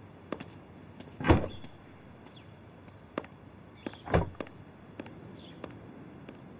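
Two loud thumps about three seconds apart, among lighter scattered clicks and knocks.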